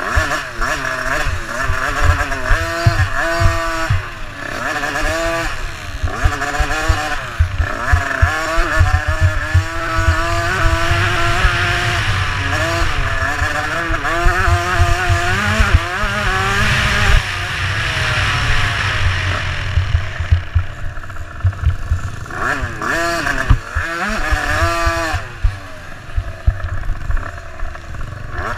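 Small dirt bike engine revving up and down through the gears as the bike races over a dirt track, heard from on the bike with wind and bump rumble on the microphone. About two-thirds of the way through the revs drop off, then climb hard again.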